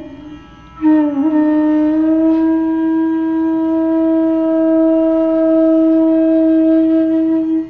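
Interlude music: one long flute-like wind note. It comes in about a second in, bends slightly at first, then holds steady at one pitch.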